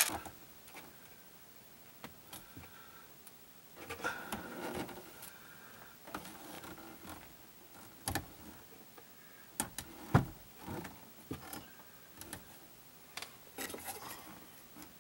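Hands working a rubber fuel hose onto a brass fitting: scattered small clicks, taps and rustling, with a few sharper clicks, the loudest about ten seconds in.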